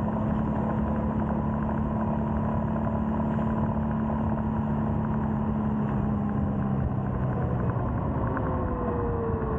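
Royal Enfield Scram 411's single-cylinder engine running at a steady cruise on the road, its pitch falling over the last two seconds as the revs drop.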